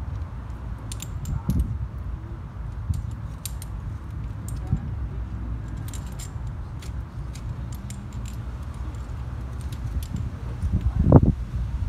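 Metal climbing gear, carabiners and cams racked on a harness, clinking lightly in a few short clusters over a steady low rumble, with a louder dull thump near the end.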